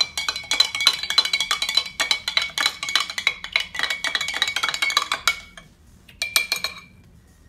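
Metal spoon stirring a drink in a glass mason jar: rapid clinking against the glass with a ringing tone. The stirring stops about five seconds in, followed by a few clinks as the spoon is lifted out.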